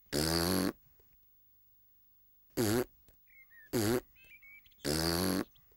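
A cartoon piglet hiccuping four times. The first and last hiccups are longer, about half a second each, and the two in the middle are short. Faint bird chirps come between them.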